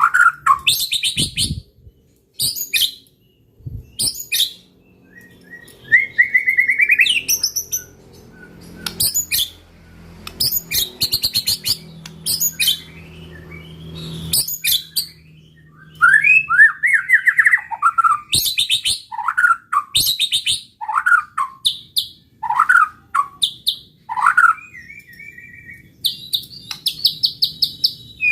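White-rumped shama singing a varied song in quick phrases, with rapid high buzzy trills, sliding whistled notes and short pauses between phrases.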